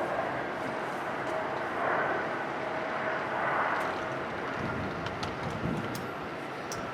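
Boeing 737-700 jet engines (CFM56-7B turbofans) heard during landing: a steady rush with a faint held whine, swelling twice.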